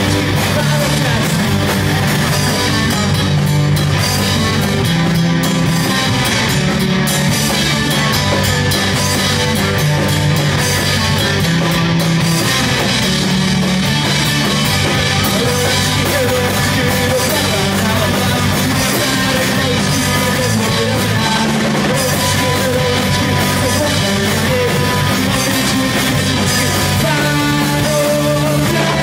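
Rock band playing a loud, steady rock song with electric guitars, bass guitar and drum kit.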